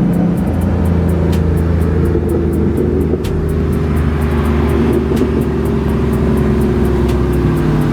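Dodge Challenger Scat Pack's 392 Hemi V8 running at highway speed right alongside, heard from inside a kei truck over the truck's own engine and road noise; a loud, steady drone whose pitch shifts slightly as the throttle changes.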